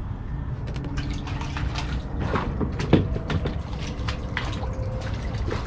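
Water splashing and dripping beside a kayak as a small hooked sheepshead is brought up and scooped with a landing net, with a string of short sharp clicks and knocks, the loudest about three seconds in.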